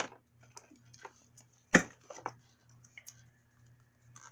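Hands handling small plastic toy packaging: scattered clicks and rustles, with one sharp loud knock or snap a little under two seconds in.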